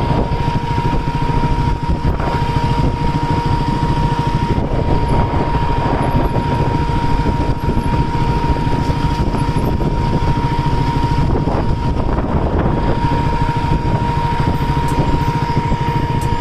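KTM RC 200 single-cylinder engine running steadily as the bike is ridden slowly over a rough dirt trail, with wind rushing on the microphone.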